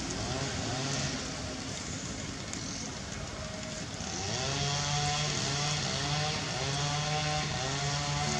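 A motor engine running, with a steady pitched hum that grows louder about four seconds in.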